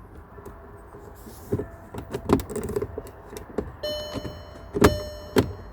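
Plastic clicks and knocks as a replacement headlight switch is handled and pushed into its dashboard housing. About two-thirds of the way in, a steady high electrical whine starts and stays on.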